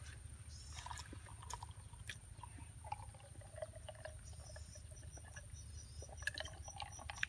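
Faint eating sounds, with small clicks of fingers picking at food, and sips from a glass of iced drink. Behind them runs a series of evenly spaced high insect chirps.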